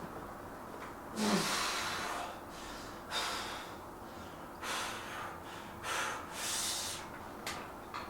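A man breathing hard under exertion in a weight set: about six forceful exhalations, with a short grunt just over a second in.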